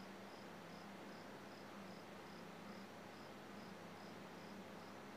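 Near silence: faint room tone with a low hum and a faint high-pitched chirp repeating about twice a second.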